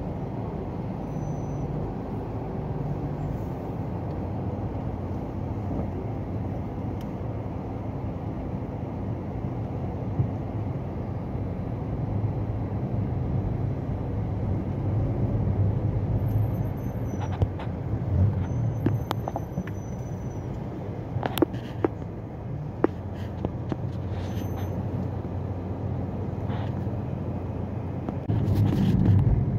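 Car in slow stop-and-go city traffic heard from inside the cabin: a steady low engine and road rumble. It has a few short clicks in the second half and gets louder near the end.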